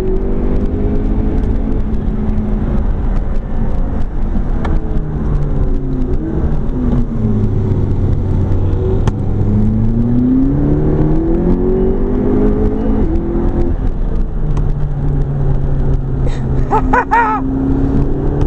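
McLaren 12C's twin-turbo V8 heard from inside the cabin, pulling hard with its pitch rising and falling through the gears. It drops low around the middle, climbs again, then runs steady near the end.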